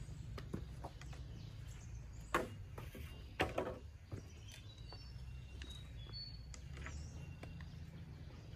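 Bamboo poles being handled and knocking against each other, with scattered light clicks and two louder knocks about two and a half and three and a half seconds in. Small birds chirp throughout.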